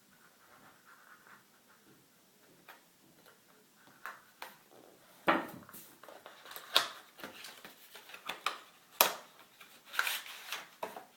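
Cardboard box and plastic tray being opened and handled as an SSD is unpacked. It starts as faint rustling, then from about four seconds in comes a run of sharp plastic clicks and crinkles, with four louder snaps.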